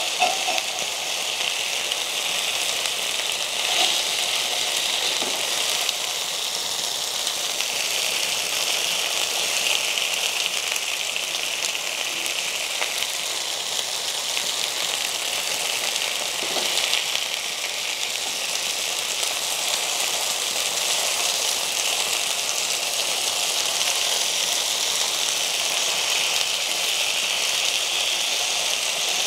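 Marinated chicken pieces sizzling steadily in oil in a cast-iron pan, with an occasional faint knock of tongs as the pieces are turned.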